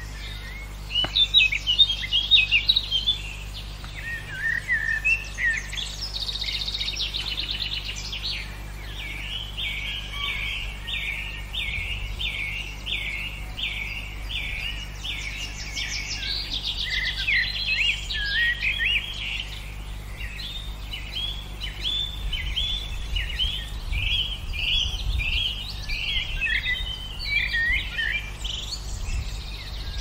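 Several songbirds singing and chirping, loudest in a burst of calls a second or two in, then one bird repeating a down-sliding note over and over through the middle, over a steady low background rumble.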